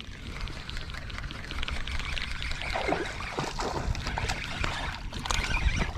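Water splashing and trickling as hooked trout are brought up to the boat, with many short crackling splashes over a low rumble.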